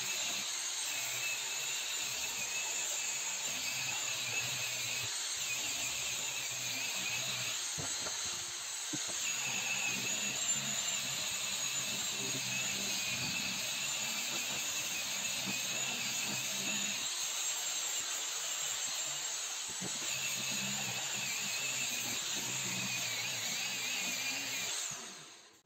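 Angle grinder fitted with a sanding disc on a backing pad, running steadily with a constant motor whine while sanding a wooden cutting board. The whine dips briefly about eight seconds in and dies away near the end as the tool stops.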